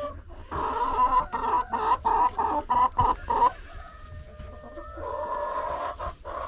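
Hens clucking inside a chicken coop: a quick run of clucks, about three a second, then a longer, drawn-out call near the end.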